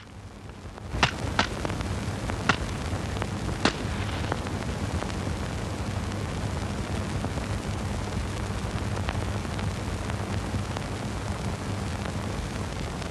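Steady hiss and low hum of an old film soundtrack, with a handful of sharp clicks and pops in the first four seconds.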